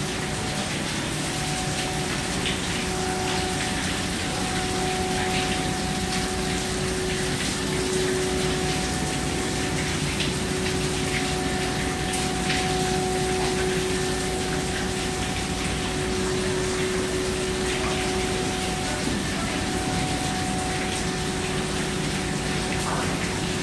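Ship's machinery running with a steady low hum and a held mid-pitched tone, under a constant rushing of water.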